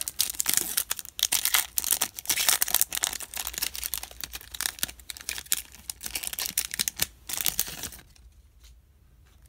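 Foil wrapper of a Bowman baseball card pack torn open and crinkled by hand, a dense crackling that stops about eight seconds in.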